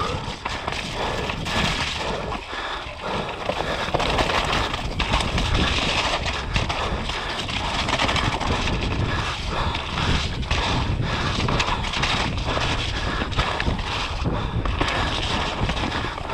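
Mountain bike descending a muddy forest singletrack at speed: a steady rush of tyres on wet dirt with frequent clatters and knocks as the bike rattles over roots and bumps, mixed with wind on the microphone.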